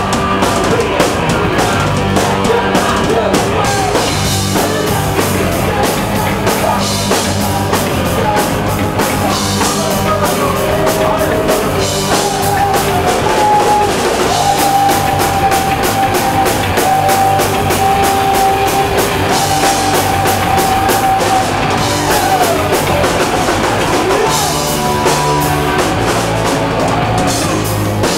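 A rock band playing loudly, with a drum-kit beat and electric guitar; through the middle a long high note is held, then slides down.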